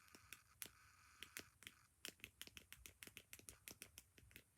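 Faint, quick clicking and tapping of a plastic fidget toy being handled. The clicks come sparsely at first, then about five or six a second from about two seconds in.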